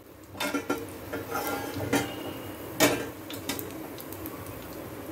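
Perforated metal skimmer clinking against the deep-frying pan while a fried egg vada is lifted out of the oil: a few separate sharp taps, the loudest just under three seconds in.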